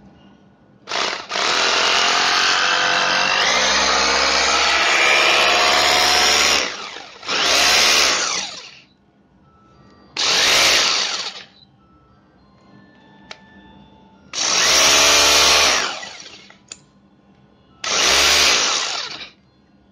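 Bosch GBH 2-26 DRE rotary hammer's motor run up to speed: one long run of about six seconds, then four short bursts, each winding down with falling pitch as the trigger is let go. This is a test run of the repaired machine.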